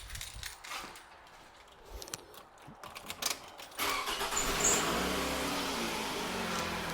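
A few clicks and knocks, then about four seconds in a 2007 Toyota Camry's four-cylinder engine starts with a sudden rush of sound, its pitch flaring and dropping as it settles to a steady idle.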